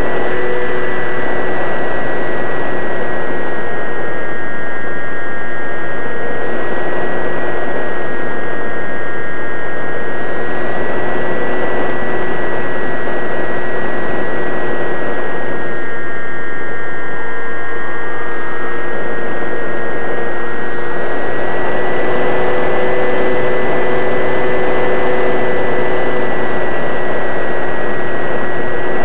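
Radio-controlled model airplane's motor and propeller, heard from the onboard camera: a steady whine of several tones that drift slightly in pitch, over the rush of wind past the airframe.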